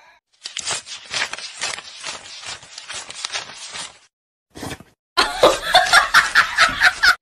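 Breathy laughter in quick pulses, getting louder and more voiced over the last two seconds.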